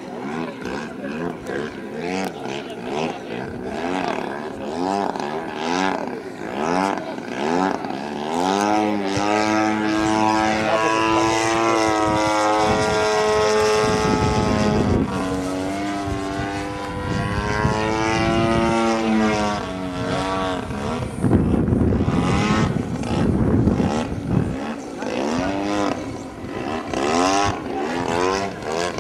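Engine and propeller of a Pilot RC Yak-54 aerobatic model plane in flight, its pitch gliding up and down with throttle and passes. The note is held steady for long stretches in the middle, with a brief dip about fourteen seconds in.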